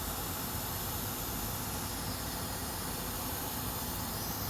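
Hot air rework station blowing air at 500 °C onto a laptop motherboard: a steady, even hiss with no break.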